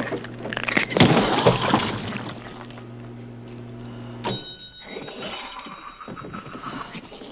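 Microwave oven humming steadily, with a loud crashing burst about a second in. Just after four seconds the hum cuts off with a sharp click and a bright ringing tone.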